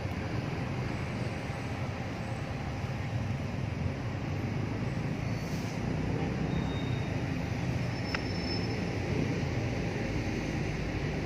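Steady low rumble of outdoor background noise, with a faint short click about eight seconds in.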